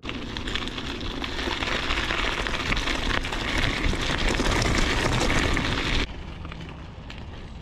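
Strong wind blasting the microphone, a loud rushing, crackling noise that drops off sharply about six seconds in.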